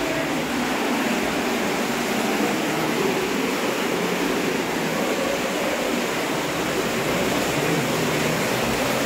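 Steady rushing of water flowing through the rock-cut water channel of Hezekiah's Tunnel.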